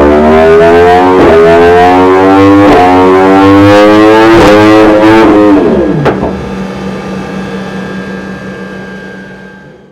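Yamaha YZF-R1 (RN65) crossplane inline-four motorcycle engine revving up hard through its exhaust, pitch climbing steadily. About five and a half seconds in the throttle shuts and the revs drop sharply, with a single exhaust crack, then it settles to a lower steady note that fades away.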